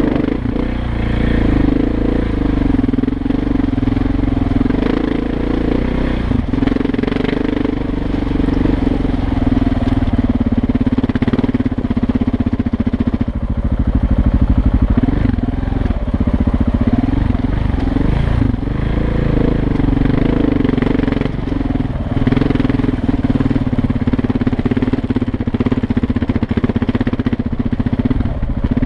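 Motorcycle engine running under way over a rough gravel track, its pitch rising and falling with the throttle, with occasional knocks from the rough surface.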